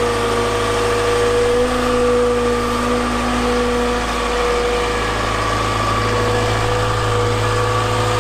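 Volvo EWR150E wheel excavator's diesel engine and hydraulics running steadily, with a constant whine, while its hydraulic rotating brush sweeper clears snow from the rail track.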